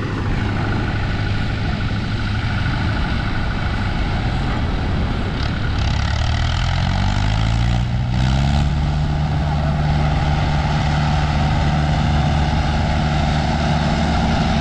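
Farm tractor's diesel engine running under load while it hauls a beach seine net. It speeds up about halfway through and holds at a higher pitch, over the steady wash of surf.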